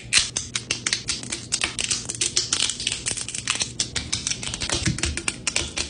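Thin resin 3D-print support structures snapping and being clipped off a printed model with scissors: a rapid, irregular run of small crisp clicks and snaps.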